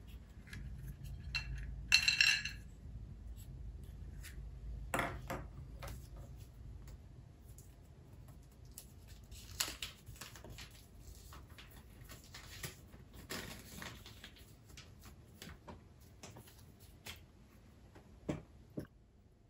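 Irregular small clicks, taps and clinks of hard objects being handled, with a louder crinkly burst about two seconds in and busier clusters of clicking later on.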